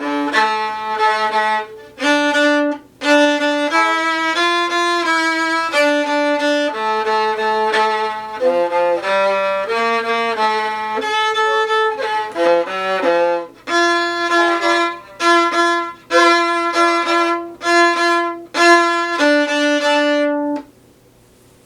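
Solo viola playing a bowed melody in C major. Toward the end it breaks into short, separated, accented notes, then stops about 20 seconds in.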